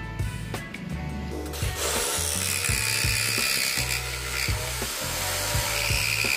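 Electric jigsaw cutting a wooden board, starting about two seconds in and running with a steady high whine. Background music with a beat plays throughout.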